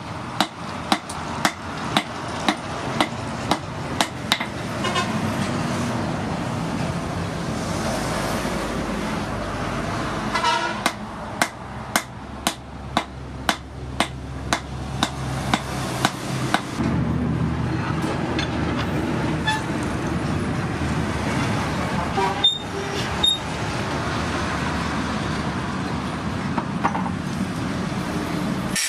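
Hand hammer striking red-hot rebar on a steel anvil while it is forged into a hammer head, about two blows a second in two runs of several seconds each. A steady background drone runs under and between the runs of blows.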